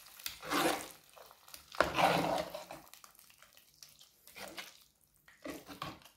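Metal ladle stirring thick sweet pongal of rice, moong dal and jaggery in an aluminium pot. It makes four wet, squelching scraping strokes, the loudest about two seconds in.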